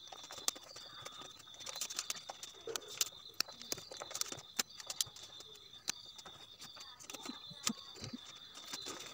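Cellophane wrapping paper crinkling and crackling in irregular bursts as it is folded and pressed into place by hand, over a faint steady high tone.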